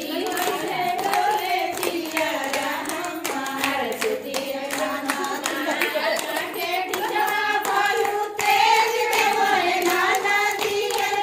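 A group of women singing a folk song together, with hand clapping along to it throughout.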